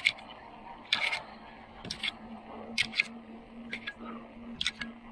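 A run of sharp, irregular clicks and clacks, roughly one a second, some in quick pairs. A faint steady hum sits under them from about two seconds in.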